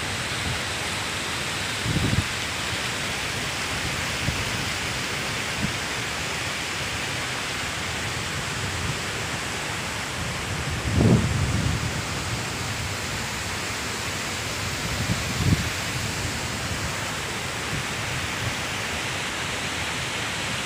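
Large waterfall's steady rush of falling water, with its torrent churning below. A few brief low thumps on the microphone break through about 2, 11 and 15 seconds in.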